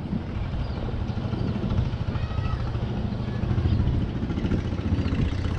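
An engine running with a steady low drone.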